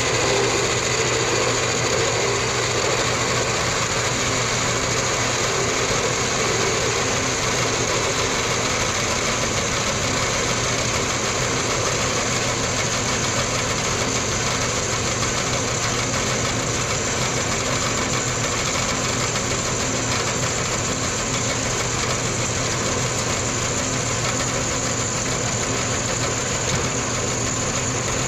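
Small horizontal metal-cutting bandsaw running steadily, its blade cutting through a short piece of round metal bar clamped in the vise.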